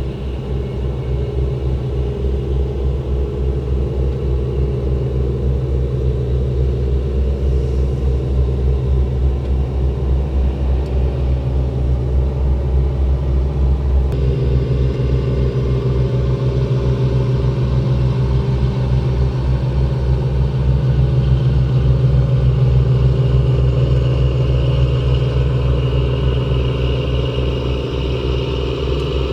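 Pusher boat's diesel engine running steadily under load, a low, even throb that grows slightly louder past the middle.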